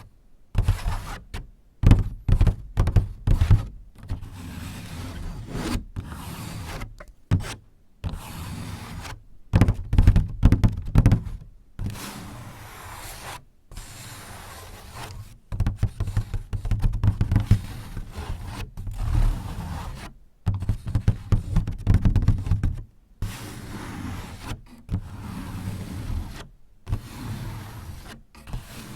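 Close-miked ASMR tapping and scratching on a paper sliding door (shoji): irregular soft knocks and low thunks mixed with stretches of scraping and rubbing, broken by several brief silent gaps.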